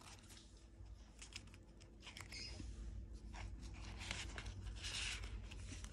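Quiet rustling of paper and a plastic binder pocket being handled, with a few light clicks.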